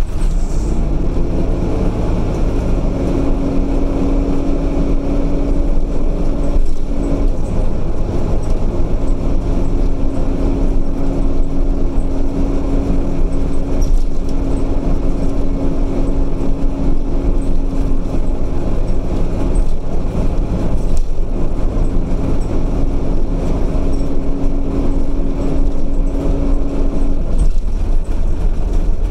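Optare Solo bus with its MAN diesel engine running, heard from inside the passenger saloon: a steady low engine and road rumble with a whine over it. The whine breaks off about seven and twenty seconds in and stops near the end.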